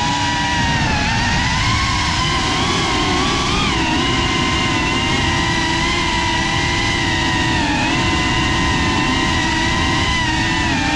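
FPV quadcopter's brushless motors and propellers whining, the pitch wavering up and down with throttle, over a steady rushing of wind and prop wash, heard from the drone's onboard camera.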